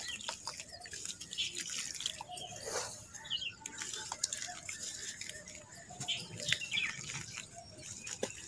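Dry red dirt chunks crumbled by hand, the grains and bits pattering and plopping into a puddle of muddy water in irregular small crackles and drips.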